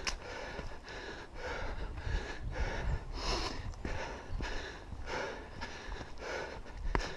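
A person breathing hard and rhythmically while hiking, about two breaths a second, over a low rumble.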